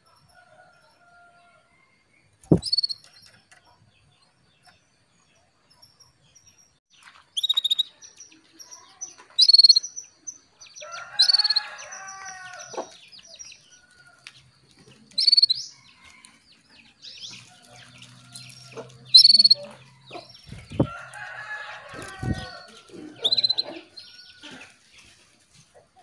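Female canary calling for a male: short, sharp high chirps repeated every few seconds. Twice a lower, longer warbling call sounds behind them, and there are a few thumps.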